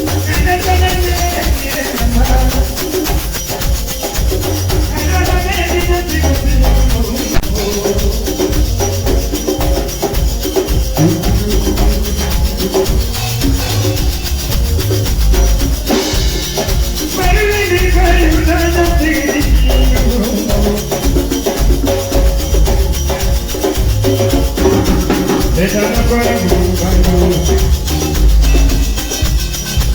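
A live band playing dance music through the PA, with a heavy, steady bass beat, percussion and melodic lines running over it throughout.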